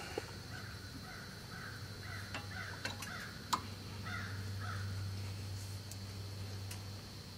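A few sharp metallic clicks and knocks from tools working a brake caliper as its pistons are pushed back, about two to three and a half seconds in, over a steady low hum.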